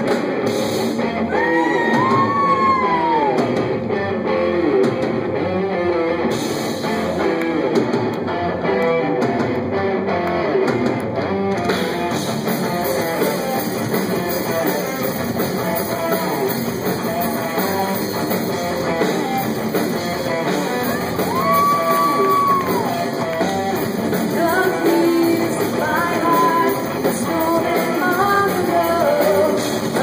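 Live rock band playing with electric guitar, drums and a singer, recorded through a cellphone microphone. Long sung notes bend up and down about two seconds in and again about two-thirds of the way through.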